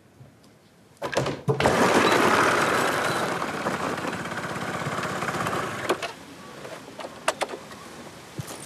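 Small motor scooter engine buzzing, starting suddenly about a second in, loudest shortly after, then easing to a lower steady running level, with a few sharp clicks near the end.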